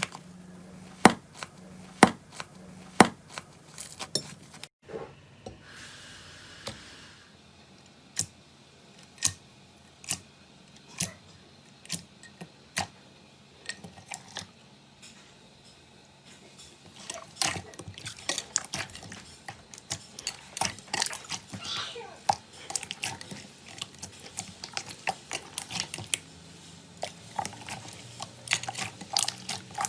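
Slime being squeezed and pressed by hand, making sharp clicks and pops at about one a second at first, then sparser pops, and a dense run of crackling pops in the second half.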